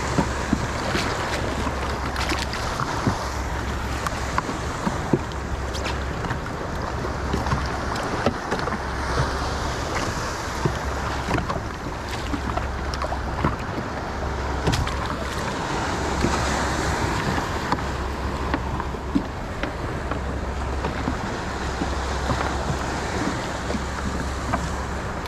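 Wind on the microphone and water washing around a jet ski, with a low rumble that comes and goes every second or two and scattered small clicks.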